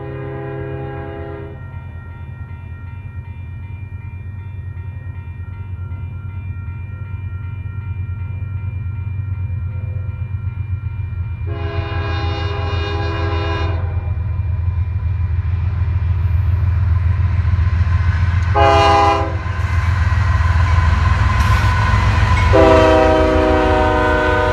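Nathan K5HL-family five-chime locomotive air horn sounding the grade-crossing signal: long, long, short, long. Under it runs the steady low rumble of an approaching diesel locomotive, growing louder as it nears.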